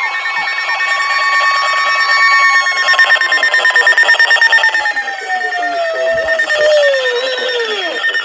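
Electronic emergency-alert tones: a layer of steady and swooping tones, one steady tone sliding slowly down in pitch over the second half, with a fast pulsing from about three seconds in.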